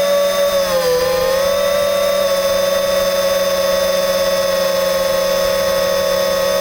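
FPV drone's electric motors and propellers whining steadily, heard from the camera mounted on the drone. The pitch dips briefly about a second in, then holds steady.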